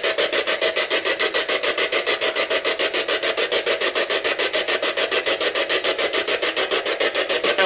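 Ghost-hunting spirit box sweeping through radio frequencies: a continuous, fast, even chop of radio static at about ten pulses a second.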